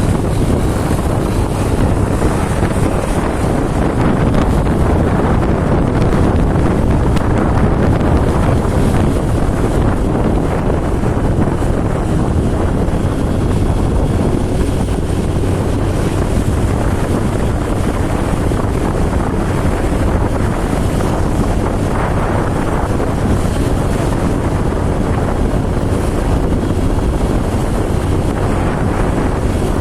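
Steady wind rushing over the microphone, mixed with the constant road and engine noise of a moving vehicle, with a faint low hum underneath.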